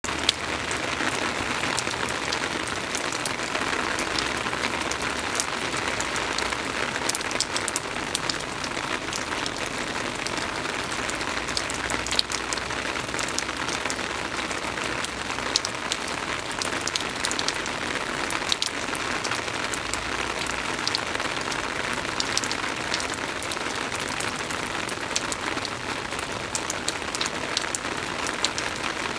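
Steady rain falling on a wet wooden deck and splashing into shallow puddles on the boards: a constant hiss with many sharp single drop ticks scattered through it.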